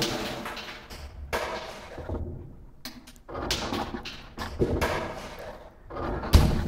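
Rocks and bricks striking the inside of a well, recorded by microphones lowered into it: a few separate hits a second or two apart, each ringing on in a long echo. Near the end a deep, regular drum beat starts.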